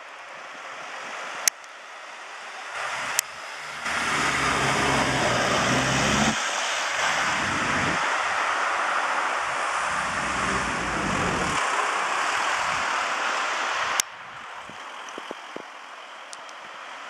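Road noise of a Mercedes Vito emergency doctor's car driving along a city street, engine and tyres loud as it pulls away, mixed with street traffic. No siren is heard. The noise cuts off abruptly about fourteen seconds in.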